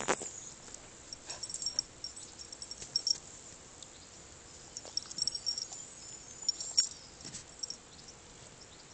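A dog sniffing close up in the grass: short quick snuffs and rustles at irregular intervals.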